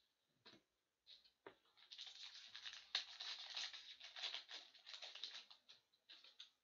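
Foil wrapper of a 2018-19 SP Authentic hockey card pack torn open and crinkled by hand: a dense, crackling rustle for about four seconds, after two light taps.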